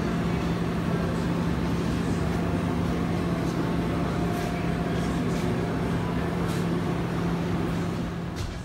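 Steady hum of commercial kitchen machinery: a constant low tone under a rush of fan-like noise, with a few faint light clicks.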